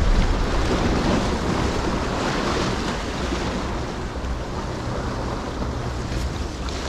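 Sea surf washing and breaking against a tetrapod breakwater, with wind buffeting the microphone, as a steady wash of noise.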